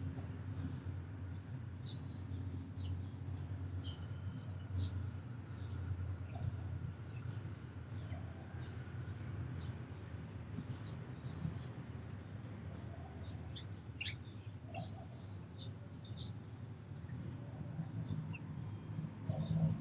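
House sparrows chirping: many short, high chirps, densest in the first half, with one sharp falling note about fourteen seconds in, over a steady low rumble.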